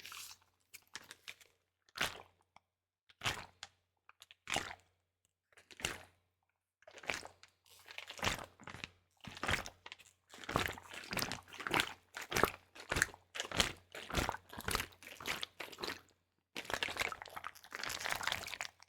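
Close-miked ASMR trigger sounds: a run of short crackling, crunching bursts. They come about once a second at first, then quickly one after another, packing closely near the end.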